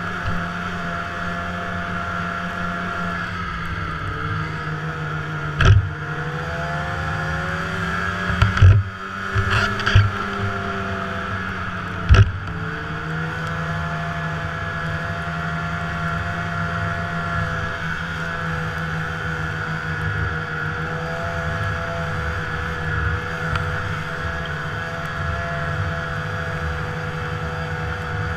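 Snowmobile engine running under way at trail speed, its pitch falling and rising again a couple of times as the rider eases off and speeds up. Several loud thumps break through about six, nine to ten, and twelve seconds in.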